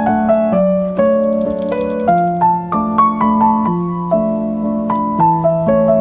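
Background piano music: a melody of notes struck about twice a second over held low notes.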